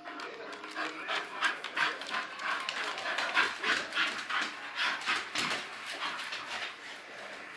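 English bull terriers panting fast and hard while play-wrestling, several quick breaths a second.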